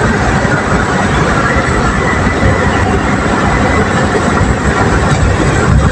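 Steady road and engine noise of a car driving on an asphalt road, heard from inside the cabin, with a brief low thump near the end.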